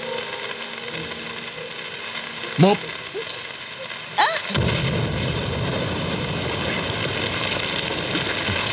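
Explosion sound effect with rubble rumbling in a stone chamber: two short cries, then a sudden heavy rumble about four and a half seconds in that keeps going.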